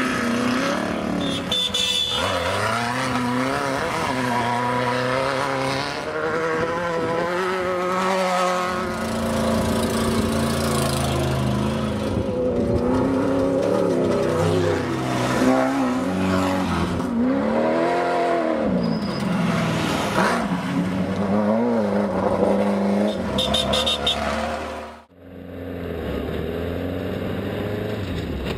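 Off-road desert race vehicle engines revving, their pitch rising and falling as they accelerate and pass by. An abrupt cut about 25 seconds in leaves a steadier engine running.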